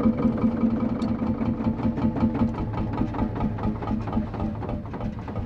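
Vintage tractor engine idling with a rapid, even beat, fading slightly toward the end.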